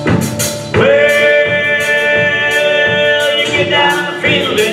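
Country band playing with drums and guitar while a singer holds one long note for over two seconds, then sings on.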